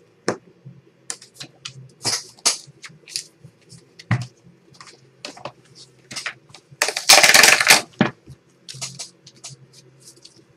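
Cardboard memorabilia boxes being handled and moved on a table: scattered clicks, taps and rustles, with a louder sliding, scraping rustle lasting about a second some seven seconds in. A faint steady hum runs underneath.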